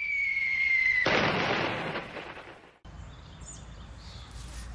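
Explosion sound effect: a high whistle falling slightly in pitch, then a blast about a second in that fades and cuts off suddenly a little under two seconds later.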